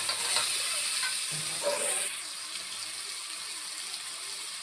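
Chopped tomatoes sizzling in hot oil in a steel kadhai, louder for about the first two seconds and then settling to a steady hiss.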